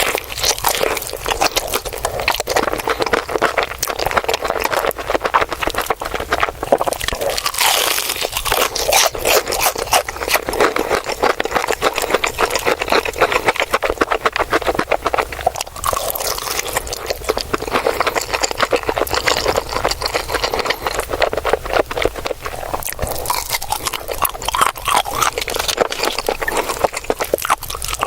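Close-miked eating of crispy fried chicken: a continuous run of crunching bites and chewing, the crackle of the crust dense and sharp.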